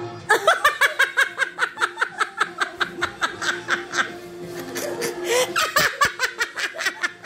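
Hearty, uncontrolled laughter in quick rhythmic bursts of about five a second, breaking off briefly about five seconds in and then starting again.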